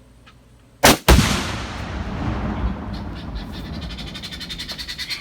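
A high-powered rifle shot followed a quarter second later by the louder boom of a binary exploding target, then a long rolling echo. From about three seconds in, a guinea fowl starts a rapid, even alarm call, about five notes a second.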